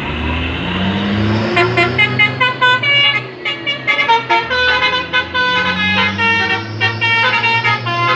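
Truck's basuri musical horn playing a fast tune of short stepped notes, starting about a second and a half in, over the steady hum of the truck's engine.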